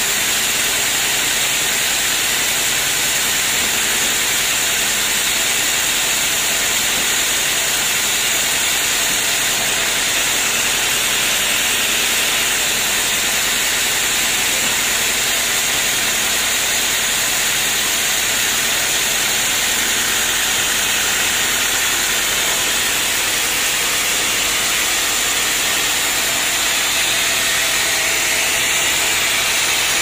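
Band sawmill running free, not yet cutting: a steady, loud hiss from the spinning band blade and its drive.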